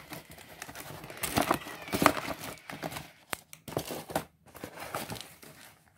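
Cardboard box being torn and pulled open by hand: irregular ripping and crinkling with a few sharp clicks.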